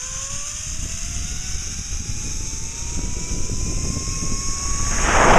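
Zip line trolley pulleys whining along the steel cable, the whine rising steadily in pitch as the rider picks up speed and levelling off near the end. Wind rushes over the microphone throughout and swells sharply about five seconds in.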